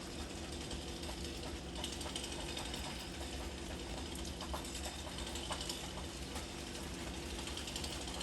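A small petrol engine running steadily at low speed with a light mechanical rattle, over the steady hiss of heavy rain.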